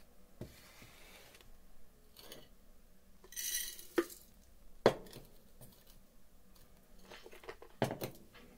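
Rolled oats and a black plastic measuring cup handled at a glass coffee carafe: a short rustling pour about three and a half seconds in, two sharp clinks against the glass about a second apart, and a few knocks near the end.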